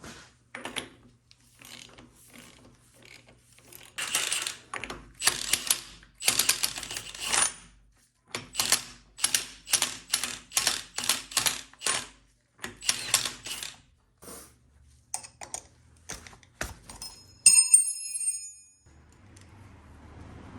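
Hand tools on steel: a ratchet worked in repeated short strokes with metal clinking, as the hub puller/installer tool is unbolted from the crank hub. About seventeen seconds in a steel part is set down with a bright ringing clink.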